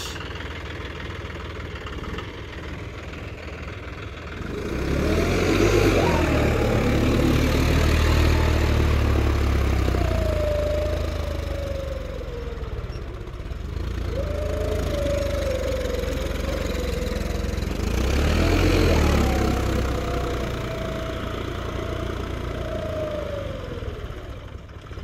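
John Deere 5405 tractor's diesel engine working under load, rising in revs three times and easing back between, with a whining tone that climbs and falls in pitch as the revs change.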